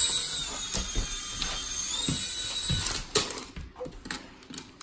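Small electric propeller motor of a Black Panther levitating flying toy whining high. It drops in pitch and fades, speeds up again about two seconds in, then cuts out. A run of sharp clicks and knocks follows as the dog gets his mouth on the toy.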